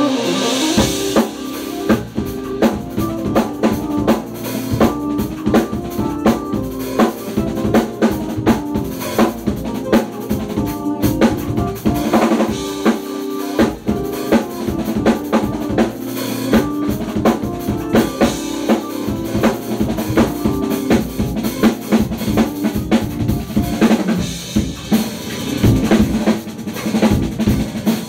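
Music driven by a drum kit: kick and snare hits in a busy, steady rhythm over pitched instruments moving in short steps.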